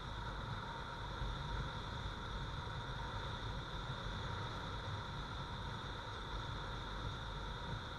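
Motorcycle cruising at a steady speed: an even mix of engine noise and wind rush, with no changes in pace.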